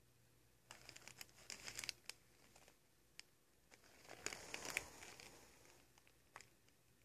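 Loose papers crinkling and rustling under a cat moving about in a drawer, in two crackly bursts, one about a second in and a louder one about four seconds in, with a few single ticks between.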